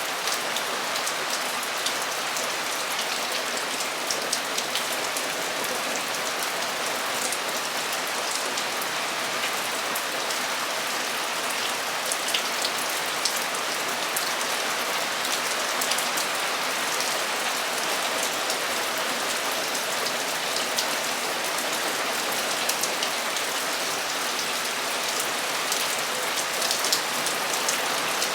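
Torrential rain drumming steadily on a metal roof, a dense hiss with the sharp ticks of individual drops.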